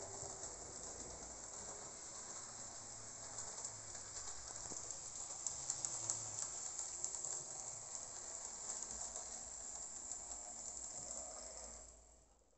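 Jouef model steam locomotive with a belt-driven motor hauling wagons around the track: a steady, quiet rolling hiss with light clicking from the wheels on the rails. It stops near the end.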